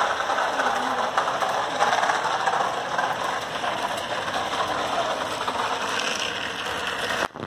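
Plastic toy truck rattling and scraping as it is dragged on its wheels over rough concrete, a steady clatter that cuts off abruptly near the end.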